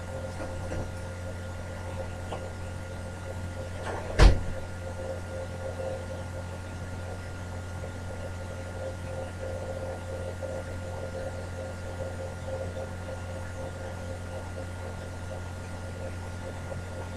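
Steady electrical hum of an empty workshop, with a single sharp knock about four seconds in.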